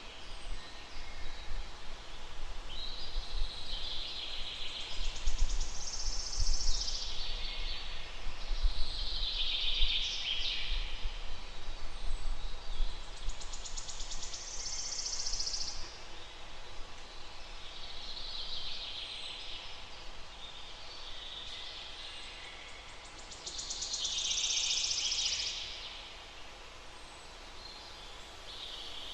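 Songbird singing in the forest: repeated high, trilled phrases of one to two seconds every few seconds, over a steady outdoor hiss and an uneven low rumble.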